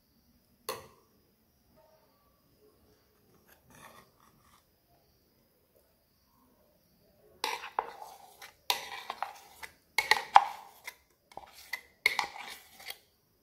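Steel spoon scraping and knocking against a steel mixer-grinder jar and bowl while thick batter is scooped out. A single clink about a second in, a few faint scrapes around four seconds, then from about halfway a run of irregular clanks and scrapes.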